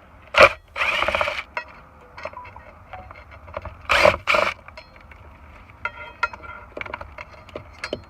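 Hand tools and small parts being handled while wiring and relays are stripped out: scattered light clicks and knocks, a short rasping scrape about a second in, and two sharper knocks about four seconds in.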